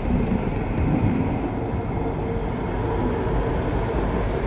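Underground metro train running, heard from inside the passenger car: a steady rumble with a faint steady hum.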